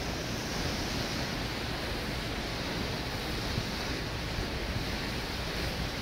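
Steady rush of wind and water, with wind buffeting the microphone.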